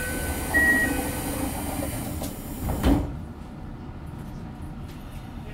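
Door chime of a Toei 5300-series subway car, two alternating tones, while the sliding doors close with a loud hiss that stops abruptly as they shut with a thud about three seconds in.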